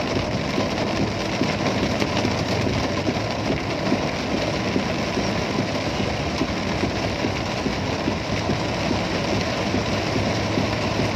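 Rain falling steadily on a car's roof and windscreen, heard from inside the cabin, with the car's engine running low and even beneath it.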